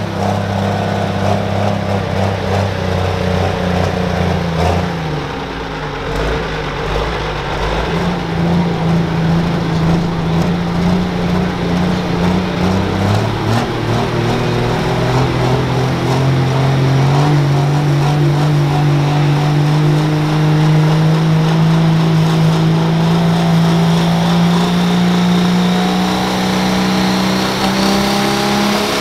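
Turbocharged diesel engine of a Limited Pro Stock pulling tractor running hard and loud under load. Its pitch sags for a few seconds about five seconds in, steps up around the middle, then climbs steadily through the second half as the engine winds up.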